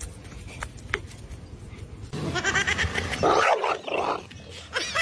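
A dog vocalising in a rapid run of short, high-pitched cries that rise and fall in pitch, starting about two seconds in after a few faint clicks.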